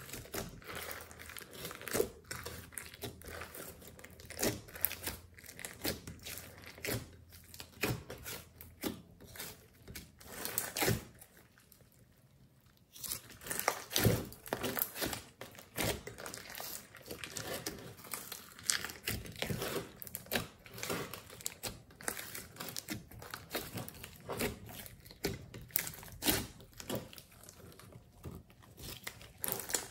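Hands squeezing, kneading and stretching a large mass of glossy slime mixed with clay and glitter, giving a dense, irregular run of sticky clicks and crackles. The sound drops away for about a second and a half in the middle, then picks up again.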